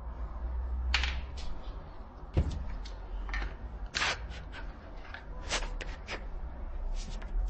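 Scattered clicks and light knocks of hard 3D-printed plastic parts of an air rifle being handled and fitted together, with a duller thud about two and a half seconds in.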